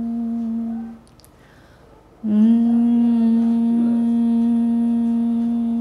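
A woman humming one steady, soft note with closed lips. She breaks off about a second in and picks up the same note again about a second later, sliding up into it. This is the gentle humming that begins an early-morning vocal warm-up.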